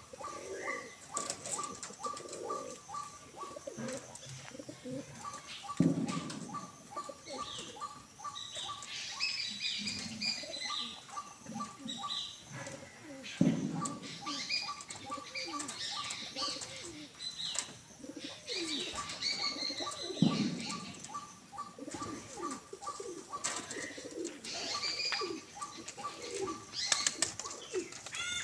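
Domestic pigeons cooing, with loud wing flaps three times as birds take off or land. Higher bird chirps and a steady rapid ticking call sound behind them.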